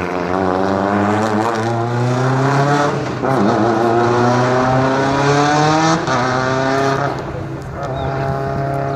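Mitsubishi Lancer Evolution rally car's turbocharged four-cylinder engine accelerating hard out of a turn, its pitch climbing and dropping at upshifts about three and six seconds in, then holding steadier near the end as the car pulls away.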